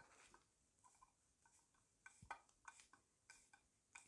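Faint, scattered clicks and light metal taps of a large screwdriver being picked up and fitted to the strainer plug in a Carter WO carburetor body, with one soft knock a little past halfway.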